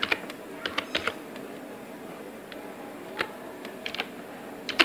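Computer keyboard keystrokes: sharp clicks in small, irregular clusters with pauses between them, as a word is typed slowly.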